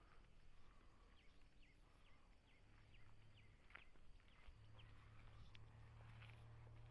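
Faint bird chirps: a string of short, falling calls in the first few seconds, then a few scattered sharp ones, over quiet outdoor ambience with a faint steady low hum.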